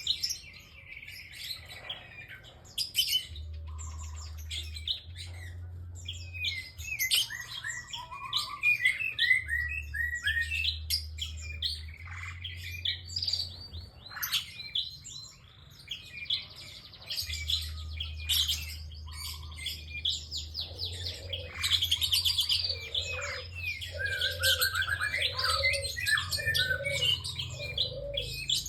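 Prinia (prenjak) singing continuously in fast, dense chirps and trills. Near the end a lower note repeats about once a second under the song, over a steady low hum.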